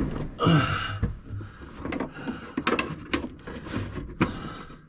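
Scattered clicks and knocks of hand work with a screwdriver and small screws, with a brief vocal murmur about half a second in.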